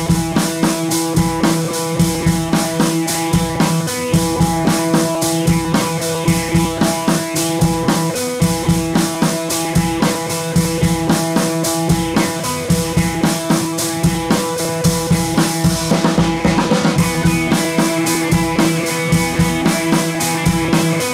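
Background music with a steady drum beat and guitar.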